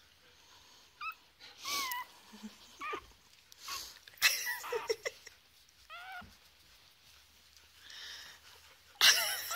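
Young puppy whimpering in a series of short, high-pitched cries that rise and fall, with a louder, noisier burst near the end.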